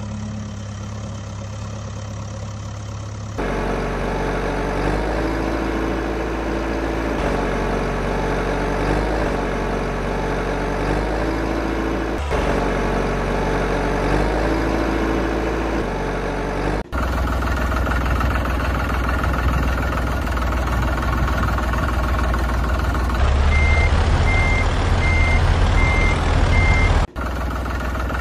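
Heavy-vehicle engine sounds running and idling in several spliced sections that change abruptly from one to the next. Near the end a reversing beeper sounds about twice a second for a few seconds.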